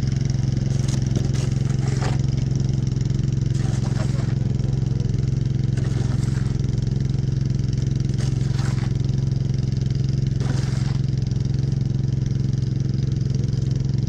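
Snowblower engine running steadily at a constant drone. Snow shovels scrape across the driveway several times over it.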